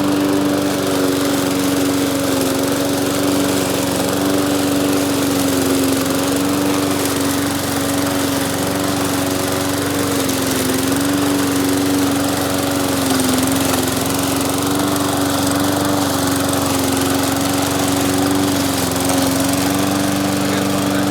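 Walk-behind gas lawn mower running steadily while mowing very tall, thick grass, its engine note dipping briefly a few times.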